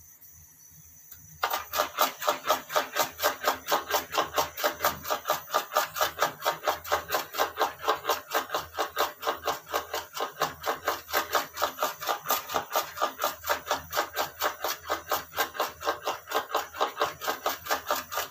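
A large kitchen knife rapidly chopping fresh green herbs on a stone board, in fast, even strokes about five or six a second, the blade clicking against the stone at each cut. The chopping starts about a second and a half in.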